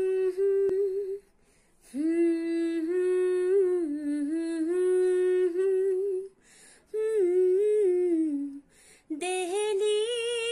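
A woman humming a slow melody without accompaniment, in four held phrases with short breaks between them.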